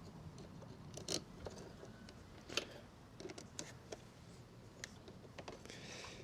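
Scattered light clicks, knocks and scrapes of small metal and plastic parts being handled while fitting a motorcycle battery's terminals. Two sharper clicks come at about one second and two and a half seconds in.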